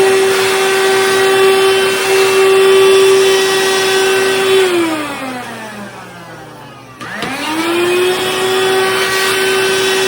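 Cordless handheld car vacuum running with a steady high motor whine, switched off about four and a half seconds in so the motor winds down with falling pitch, then switched back on about seven seconds in, spinning quickly back up to full speed and running steadily again.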